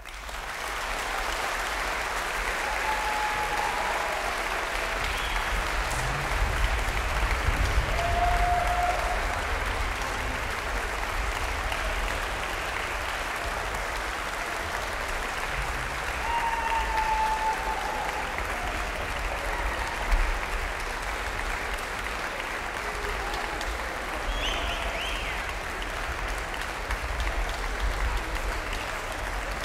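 Audience applauding in a large concert hall, breaking out suddenly as an orchestral piece ends and continuing steadily.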